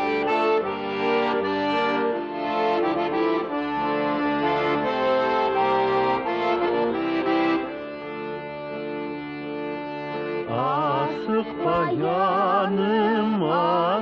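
Music on an accordion: sustained reedy chords and melody notes as an instrumental introduction. About ten and a half seconds in, a singer's voice enters with a strongly wavering, ornamented vibrato over the accompaniment.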